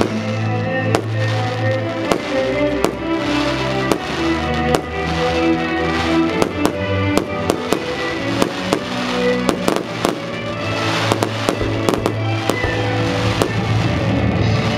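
Fireworks going off in quick, irregular succession, sharp bangs and crackles coming thicker in the second half, with music playing underneath.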